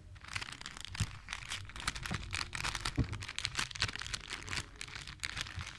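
Thin clear plastic packet crinkling and rustling as hands rummage through the rubber balloons and sticker sheet inside it: a dense, irregular run of small crackles.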